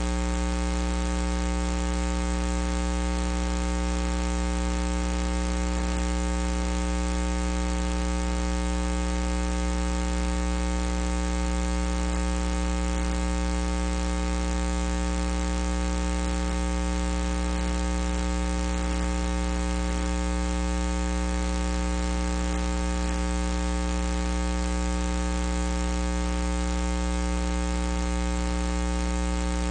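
Steady electrical mains hum and buzz, unchanging throughout, with no other sound standing out.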